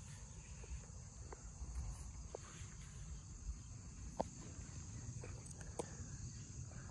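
Steady high chirring of insects in the grass over a low outdoor rumble, with a few light clicks and taps, the sharpest about four seconds in, as a goose decoy is pushed down onto its stake.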